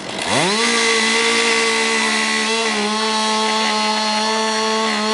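Two-stroke chainsaw revving up sharply a moment in, then running steadily at full throttle as it plunges straight into the centre of a tree trunk while felling it.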